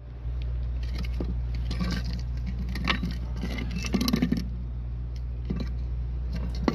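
Clinks and knocks of rusted truck air-brake chambers being handled and turned over, over a steady low rumble.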